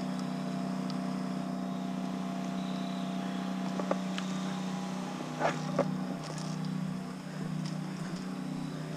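A steady low hum, with a few brief knocks and clicks about halfway through.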